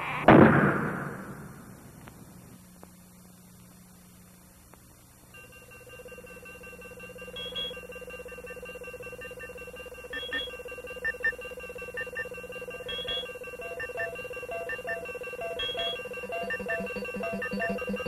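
A loud sudden hit about a third of a second in, fading away over about two seconds. After a lull, electronic end-credits music comes in: a steady drone with sustained high tones and short beeping notes that repeat, growing busier near the end.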